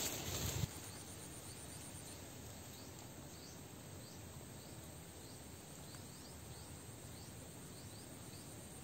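Faint, steady outdoor background with a quiet, high chirp repeating about two to three times a second. A louder rustling noise cuts off suddenly under a second in.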